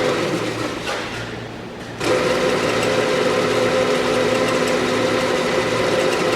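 Cincinnati 24 variable-speed heavy-duty drill press running, a steady motor and gear hum. It drops back a little after about a second, then comes in sharply again about two seconds in.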